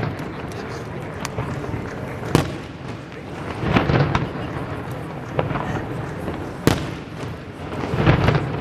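Fireworks going off: scattered sharp bangs and crackles, with the two loudest cracks about two and a half and almost seven seconds in, and heavier rumbling bursts around four and eight seconds in.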